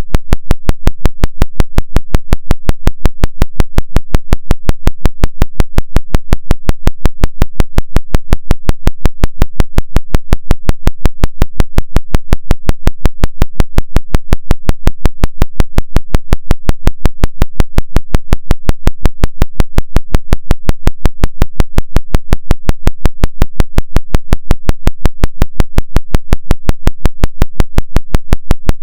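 Electronic 5.5 Hz isochronic pulse track: a sound switched on and off about five and a half times a second in an even, rapid throbbing, over a steady low tone, a theta-range rate used for brainwave entrainment.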